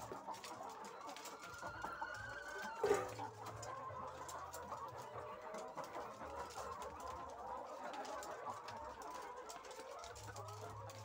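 A flock of caged laying hens clucking continuously, many overlapping calls, with one sharper, louder sound about three seconds in.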